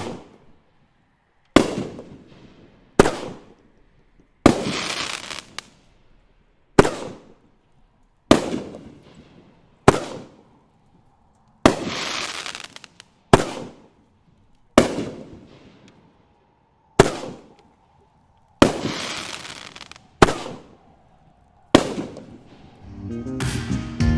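Consumer fireworks going off one shot at a time, a sharp bang about every second and a half, each dying away quickly. A few shots trail off over a second or more.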